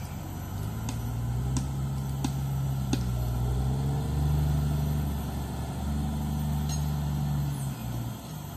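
Diesel engine of a wheeled log loader working, its note rising and falling as the grapple lifts and carries a log, with four sharp knocks in the first three seconds.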